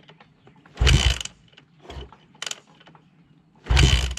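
Yamaha YZ426F four-stroke dirt bike being kick-started: two hard kicks about three seconds apart, with lighter mechanical clatter between, and the engine turns over without firing. It will not start because there is no spark: the flywheel's woodruff key has sheared.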